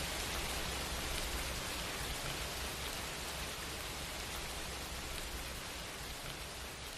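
Steady rain sound effect: dense, even patter of rain, easing slightly quieter toward the end.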